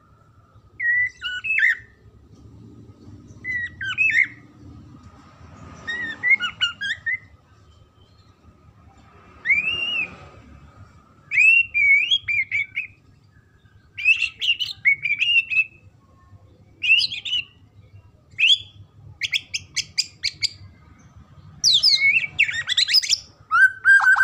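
White-rumped shama (murai batu) singing: short whistled phrases every second or two, then a run of rapid clicking notes about three quarters in, and a dense, fast burst of song near the end.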